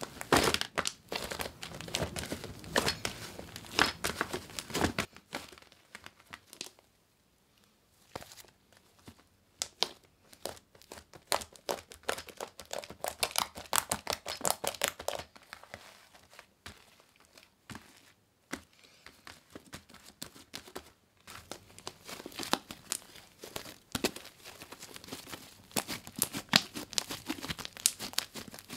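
Fluffy shaving-foam slime being kneaded, pressed and squeezed by hand, giving off dense, irregular crackling. It goes quieter for a couple of seconds about a quarter of the way in and again just past the middle.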